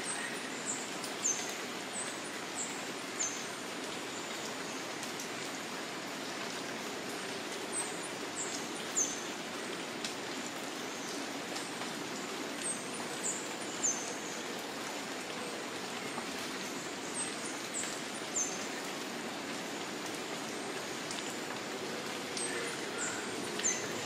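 Steady rain falling on dense tropical foliage. Over it, a small bird repeats a short phrase of two or three very high, thin downslurred notes about every four to five seconds.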